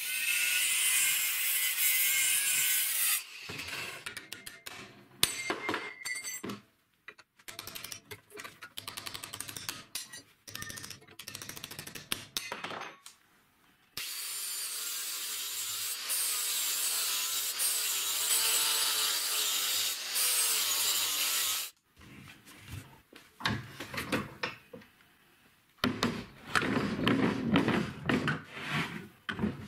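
Angle grinder cutting into a steel car shock absorber held in a vise, for about three seconds, followed by scattered clicks and knocks of metal parts being handled. In the middle the angle grinder runs steadily again on the shock absorber for about eight seconds. Near the end, knocks and rubbing of the cut shock absorbers being set down and moved on a wooden table.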